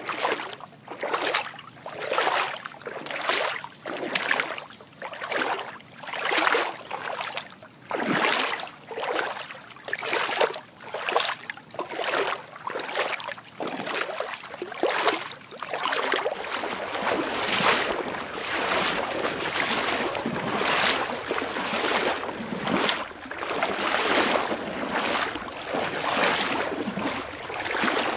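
Water sloshing and washing in rhythmic swells, about one a second, becoming a denser, more even wash in the second half.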